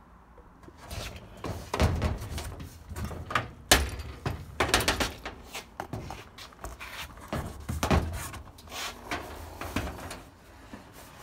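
Stored items being handled and shifted: an irregular run of knocks, bumps and clatters, the sharpest knock about four seconds in.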